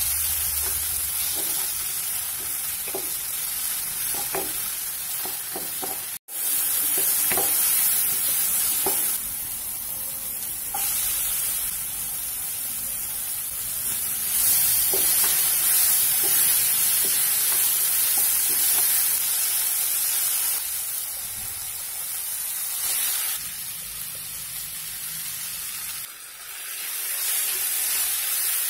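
Chopped vegetables, and later shredded chicken, sizzling in oil in a non-stick wok, stirred with a wooden spatula that gives light scrapes and taps against the pan. The sizzle is steady, with a brief break about six seconds in.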